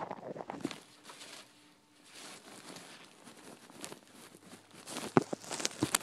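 Rustling and clicking handling noise on a handheld phone microphone as it shakes in the hand, with a few sharp clicks near the end.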